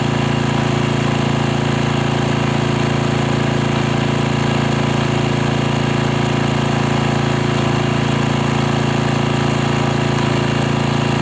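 Small portable generator engine running at a steady speed, an even mechanical drone with no change in pitch, while it powers electrodes clipped into the soil.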